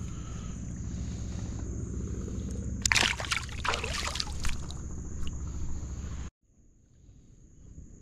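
Water splashing for about a second and a half, starting about three seconds in, as a small smallmouth bass is released by hand into the river. Under it run a steady low hum and a constant high insect trill. Everything but the faint trill cuts off abruptly after about six seconds.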